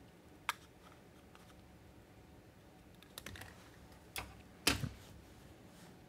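A few sharp clicks and taps as heat-shrink tubing is cut and handled on a steel workbench. The loudest is a knock near the end.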